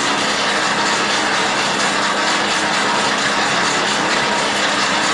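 Hand-cranked, geared centrifugal forge blower whirring steadily as it is turned, blasting air up through the bottom of a coal fire.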